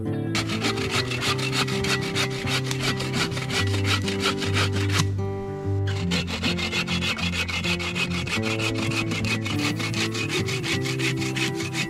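Hand saw cutting through wood in quick, even back-and-forth strokes, with a short pause about five seconds in, over background music.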